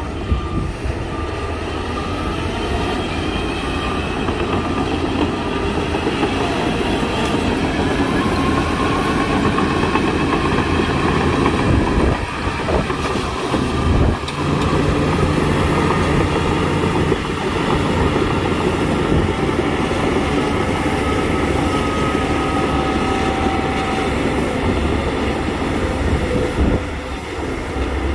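Heavy diesel earthmoving machinery running steadily under load, with brief dips in the engine noise about twelve and fourteen seconds in.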